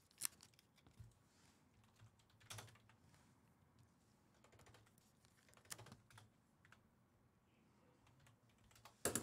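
Near silence broken by scattered faint clicks of keys on a computer keyboard, with a short cluster of louder clicks near the end.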